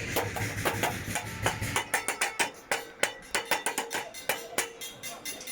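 Hoes and machetes being struck by many people at once: a dense, irregular clatter of metal blows, several a second, with some ringing. It is the traditional noise raised to 'save' the moon during a lunar eclipse.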